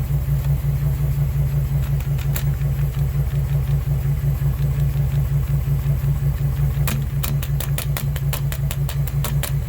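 Ford 6.8-litre V10 idling rough with an uneven, pulsing beat: cylinder 6 is misfiring. A rapid run of sharp ticks comes in about seven seconds in.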